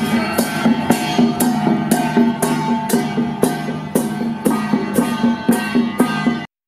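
Traditional Taiwanese folk procession music: percussion strokes about twice a second under a melody played on pitched instruments.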